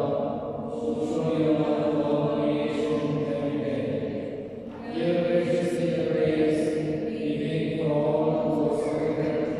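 Slow devotional hymn sung in long, held, chant-like phrases, with a short break between phrases about half a second in and again around four and a half seconds in.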